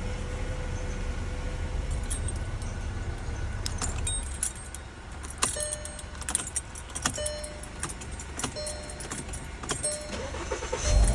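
Car keys jangling and clicking against a Volkswagen Jetta's ignition lock, with scattered sharp clicks. A run of short, evenly spaced beeps sounds in the middle.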